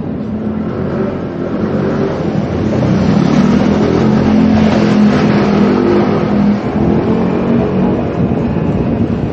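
A motor vehicle's engine running as it comes up and passes close by. It grows louder to a peak about halfway through, then eases off.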